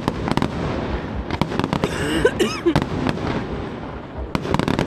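Aerial fireworks bursting: a rapid, uneven run of sharp bangs and crackles, packed most densely near the end.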